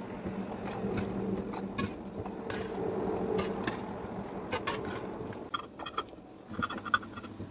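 A metal ladle clinking and scraping against an enamel bowl and a glass jar as hot cherry jam is poured through a funnel, over a steady low hum. Then a twist-off lid is screwed down onto the filled jar with short squeaks and a sharp click near the end.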